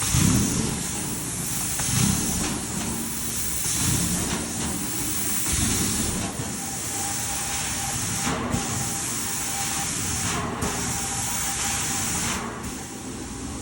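Carpet cleaning extraction wand spraying and vacuuming, a steady loud hiss that cuts out briefly twice and stops near the end, with uneven low rumbling beneath.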